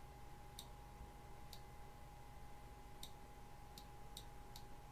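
Faint computer mouse clicks, about six at irregular intervals, over quiet room tone with a faint steady electrical whine.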